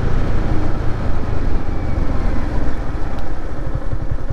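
Yamaha MT15's single-cylinder engine running under wind rumble on the microphone as the bike slows for a checkpoint. Near the end the engine's rapid even beat comes through clearly as it drops toward idle.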